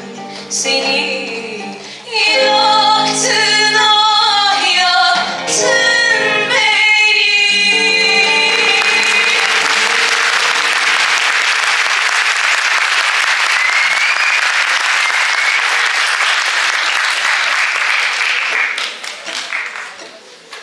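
Two women singing a slow Turkish song with acoustic guitar and violin accompaniment. The song ends about eight seconds in, followed by about ten seconds of steady audience applause that dies away near the end.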